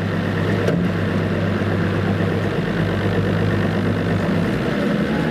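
Motorboat engine running steadily under a rush of wind and water, with one short click under a second in.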